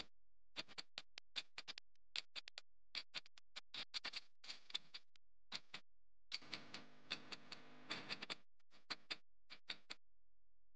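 Faint clock-ticking sound effect running with an on-screen countdown: quick ticks, several a second, that stop just before ten seconds in. From about six to eight seconds in, a low steady hum sits under the ticks.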